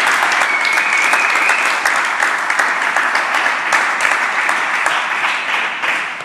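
A room of onlookers applauding steadily with dense clapping, dying away near the end.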